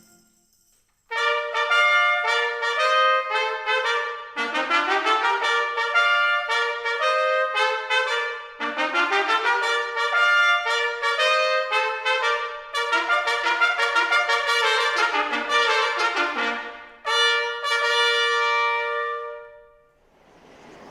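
Small brass ensemble playing a melody led by trumpet in phrases with short breaks, with low notes sliding upward twice. The music starts about a second in and ends a second before the close.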